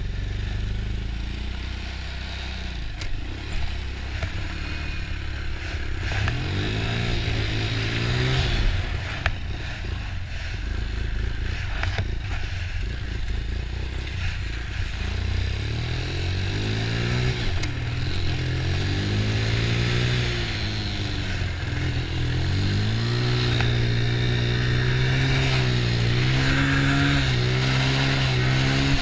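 1996 Honda TRX90 quad's small single-cylinder four-stroke engine running under way, revving up and dropping back several times, then held at higher revs through the last several seconds.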